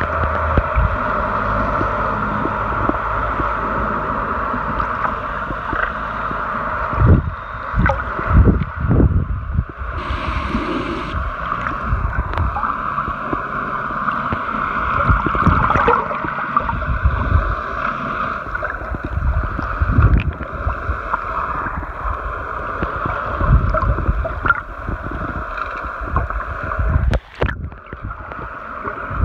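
Muffled underwater sound heard through a camera's waterproof housing: a steady drone with gurgling water and irregular low thuds and surges from movement in the water.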